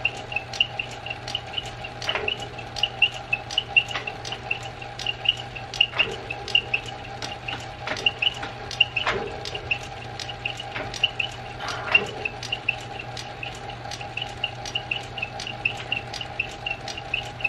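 Metal lathe turning down the Morse taper shank of a high-speed steel drill bit: a steady motor hum under a regular ticking of about three ticks a second, with a few louder clicks now and then.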